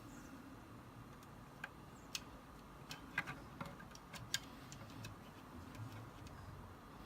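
Faint, irregular light clicks and taps, thickest around the middle, from handling a TRS-80 Model I keyboard's circuit board and key switches while probing them for a dead switch.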